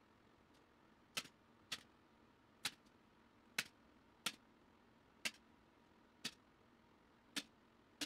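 A staple gun fires staples through carpet scratching fabric into a wooden strip, making about nine sharp snaps, roughly one a second.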